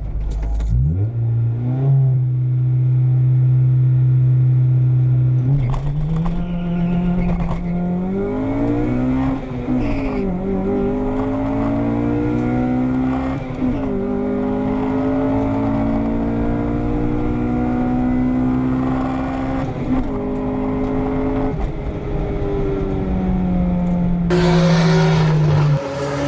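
Honda B18C four-cylinder VTEC engine held at steady high revs for a few seconds, then accelerating hard through the gears on a drag run. The pitch climbs and drops back at three upshifts. It eases off near the end, under a loud rush of noise.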